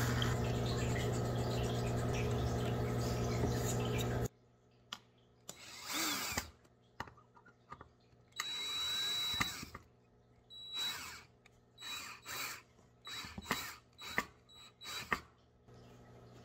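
DeWalt cordless drill/driver driving wood screws through a pine board in short trigger bursts. A steady motor hum runs for about four seconds and stops abruptly, then comes a run of brief spins, one longer with a high whine, and then several short pulses spaced about half a second to a second apart as the screws are seated.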